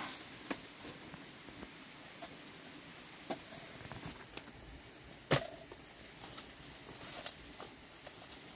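Handling of a woven bamboo basket and an orange woven sack: scattered light knocks and rustles, the sharpest knock about five seconds in, over a faint steady high tone.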